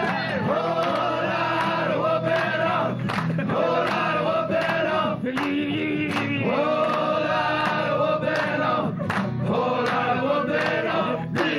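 Music: several voices singing together in long held notes over instrumental backing.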